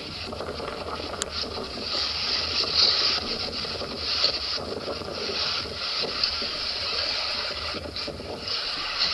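Footsteps crunching in snow on a hiking trail, under a steady hiss.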